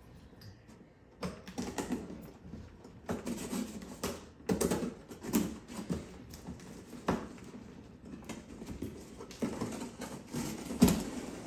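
Cardboard shipping box being opened by hand: packing tape torn off and cardboard scraped, rustled and knocked in irregular bursts.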